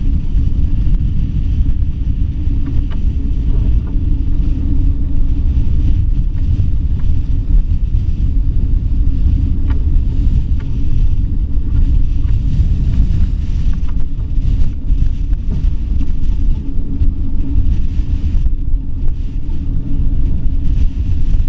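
Storm-force wind of about 45 to 55 knots buffeting the camera's microphone: a loud, steady low rumble with a few faint ticks.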